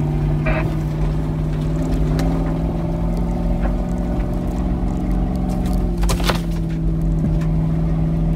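Toyota Land Cruiser 100's V8 engine pulling steadily under load as the truck climbs a rough dirt track, heard from inside the cabin. A short cluster of knocks comes about six seconds in.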